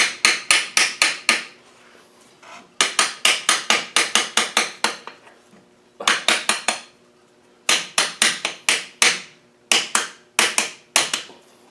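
Hammer tapping the intermediate gear pin back through a Land Rover LT230 transfer case, where the pin is catching on a bolt. The taps are sharp and ringing, about five a second, and come in five quick runs with short pauses between.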